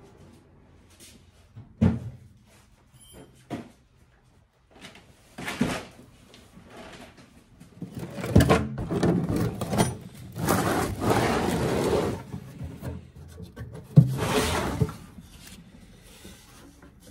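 Handling noise of a toolbox being brought over and set down: scattered knocks and thumps, with a longer stretch of scraping and rattling in the middle. The loudest thump comes near the end.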